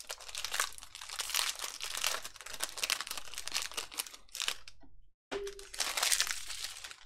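Foil trading-card pack wrapper crinkling and tearing as it is opened by hand. The sound cuts out briefly about five seconds in.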